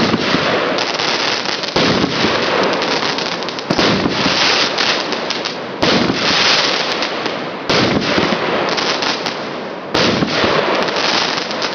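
A 30 mm consumer firework cake (multi-shot battery) firing, with a new shell bursting about every two seconds over continuous dense crackling.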